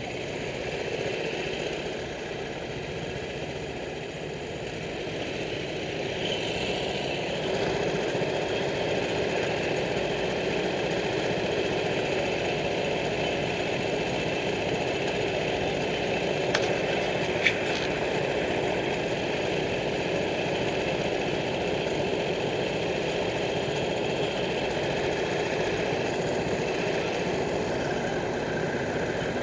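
Racing kart engines idling steadily, growing a little louder about a quarter of the way in, with a couple of sharp clicks a little past the middle.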